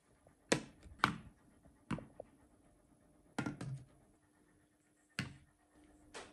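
Large plastic toy building blocks and a wooden track piece being set down on a hard tabletop and pressed together: about six separate clacks and knocks, irregularly spaced.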